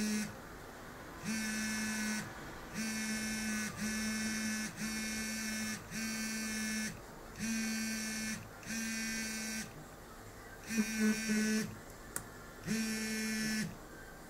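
An iPhone 5s buzzing in repeated pulses of about a second each, with short, uneven gaps between them, about nine times.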